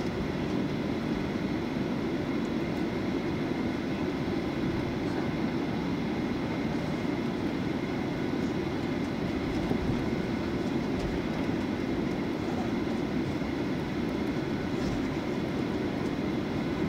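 Steady engine drone and cabin air noise heard inside an airliner as it taxis, even in level throughout, with a faint high whine over it.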